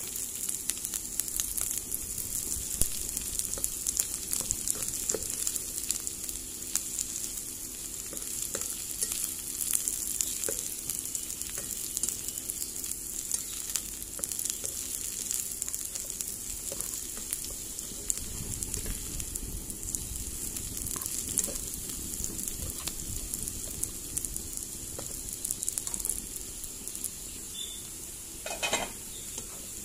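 Sliced beetroot, carrot and onion frying in oil in a pan: a steady sizzle with fine crackling.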